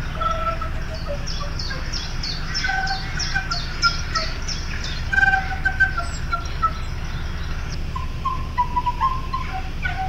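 Bird-like chirping over short piping notes from a small wind instrument: a run of quick, high, falling chirps, about four a second, in the first half, with a steady low hum underneath.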